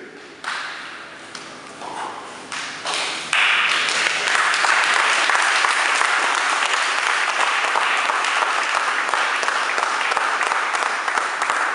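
A crowd applauding: a few scattered claps, then steady applause from about three seconds in.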